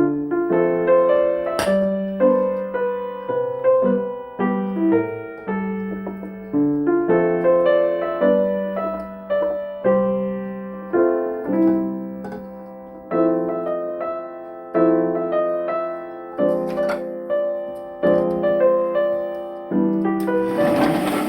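Background piano music: a gentle tune of notes and chords that strike and fade in a steady rhythm. There are a couple of faint clicks, and a short burst of noise near the end.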